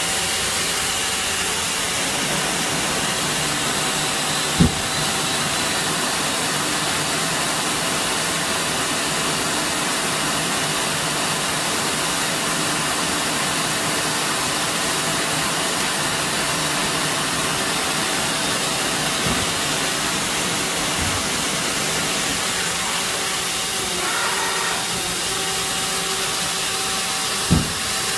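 CNC machine tool running steadily: an even mechanical hiss over a steady hum. Two short knocks, one about five seconds in and one near the end.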